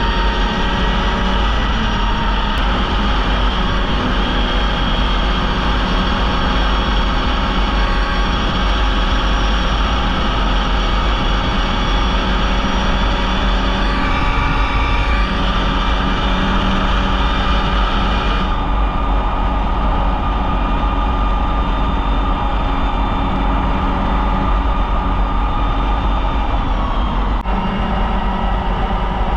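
Polaris Indy snowmobile running steadily at trail speed, engine drone over track and wind noise. The high hiss drops off abruptly about two-thirds of the way through.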